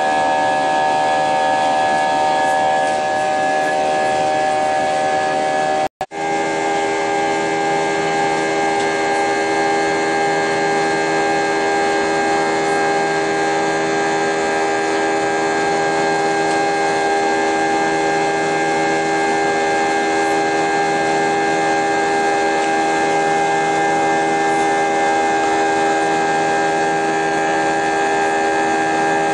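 Jet airliner engines running steadily, heard from inside the cabin: a loud, even whine of several held tones over a rushing hiss. It cuts out for an instant about six seconds in and resumes at slightly different pitches.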